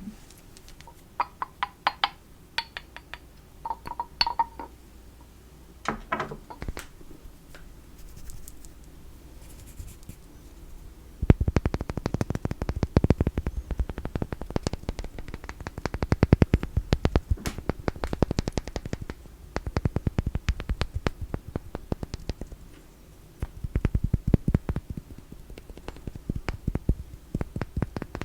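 Small cat-themed goods tapped by hand. First come a few separate taps and short ringing clinks. About eleven seconds in, a long run of fast, dense tapping and scratching begins.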